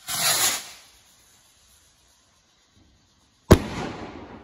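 A firework rocket launching with a hissing whoosh that lasts about a second, then, about two and a half seconds later, a single sharp bang as it bursts, with a tail that fades away.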